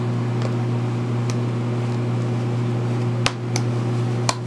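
Steady low hum from a fan or appliance in the room, with three sharp clicks near the end as the leather holster is handled.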